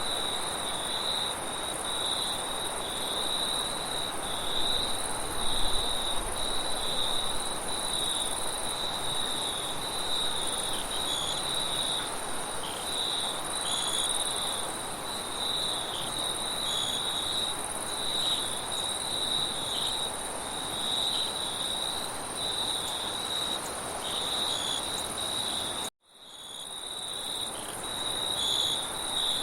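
A chorus of crickets chirping in a steady, high-pitched pulsing trill, with a second, higher insect hum above it and a soft rush of wind beneath. About 26 seconds in, the sound cuts out abruptly for a moment and then fades back in.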